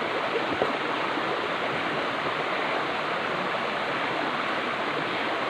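Running water of a shallow stream rushing over rocks, a steady, even rush.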